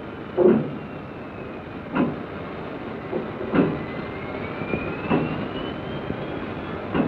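Freight train cars moving slowly on the rails, with a heavy clank about every one and a half seconds over a steady rumble. A faint high squeal rises in pitch through the middle.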